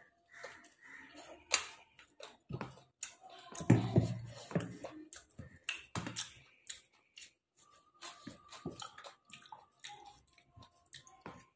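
Close-up eating sounds: a person chewing mutton biryani, with wet mouth clicks and smacks, and one short, louder, lower sound about four seconds in.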